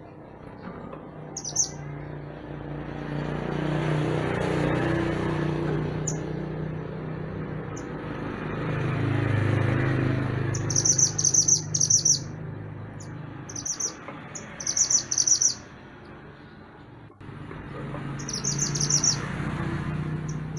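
Mantenan gunung songbird singing in short, fast, high trilled phrases, repeated in clusters, over a steady low background rush that swells and fades.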